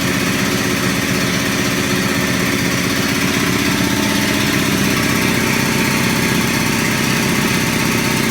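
Quincy QT-5 two-stage air compressor running steadily, its 5 hp electric motor driving the piston pump with a fast, even pulse as it pumps up the 80-gallon tank.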